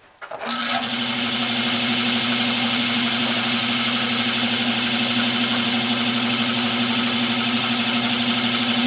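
Nova 16/24 wood lathe spinning an oak bowl blank while a turning tool takes a light cut on the inside: a steady hum under a dense, rapidly chattering hiss of the tool on the wood. It starts abruptly just after the beginning.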